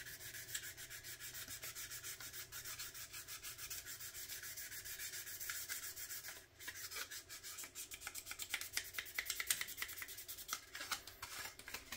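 Sanding sponge rubbed in quick back-and-forth strokes over the small plastic trunk lid of a 1/25-scale model car kit, smoothing it for primer. The strokes stop briefly about halfway, then resume more unevenly.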